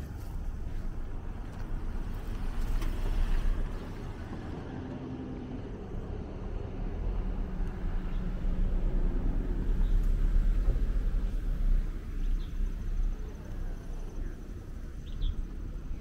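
Wind buffeting the microphone with a low rumble, and a vehicle engine humming steadily through the middle stretch.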